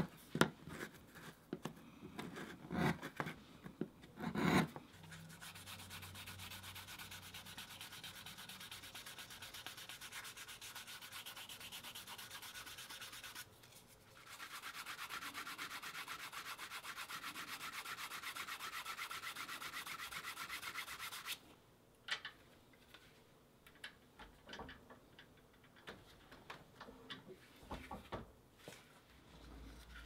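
A few sharp strokes of a steel edge tool scraping along a vegetable-tanned leather edge, then a cloth rubbed rapidly back and forth along the edge of a leather case to burnish it: a steady fast rubbing with a brief pause partway, stopping about two-thirds of the way through and leaving only light handling clicks.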